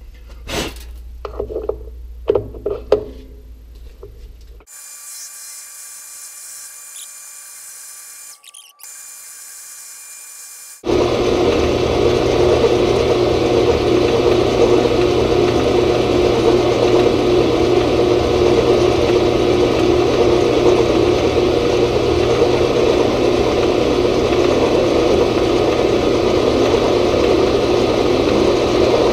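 Clicks and knocks of tooling being handled at the lathe's quick-change tool post. About eleven seconds in, the Grizzly G0602 metal lathe starts abruptly and runs steadily; this is the loudest sound, with the tool set up to face the end of the steel bar.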